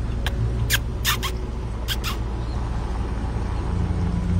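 Steady road-traffic rumble, with a vehicle growing louder near the end. About six short, sharp high-pitched ticks come in the first two seconds.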